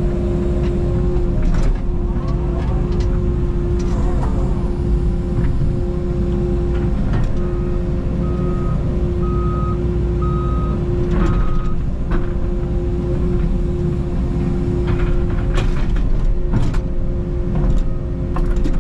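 Takeuchi TB290 mini excavator's diesel engine and hydraulics running steadily while digging, with a strong steady hum and scattered clunks. Midway, a backup alarm sounds about five short beeps, roughly one a second.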